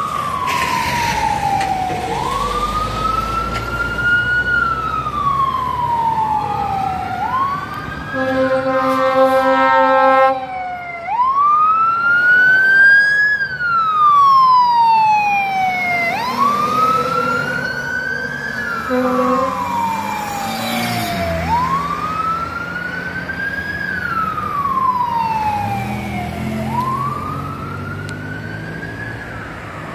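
Emergency vehicle siren on a responding Cincinnati Fire Department unit, sounding a wail: each cycle rises quickly and falls slowly, about every five seconds. About a third of the way in comes a steady horn blast of about two seconds.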